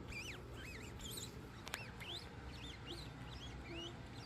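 Quick, irregular high-pitched chirps, each rising then falling in pitch, several a second, over a low steady hum.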